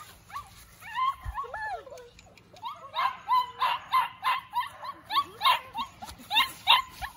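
Bluetick coonhound puppy giving a run of short, high yips, about three a second, through the second half, with a few yelps in the first couple of seconds.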